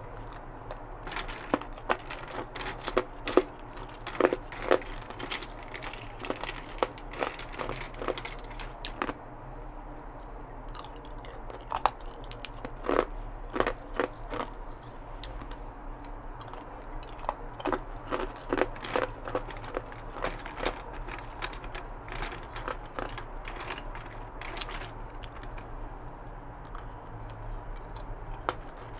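Ice cubes being bitten and crunched between the teeth close to the microphone. Sharp cracking crunches come in bunches with short lulls between them.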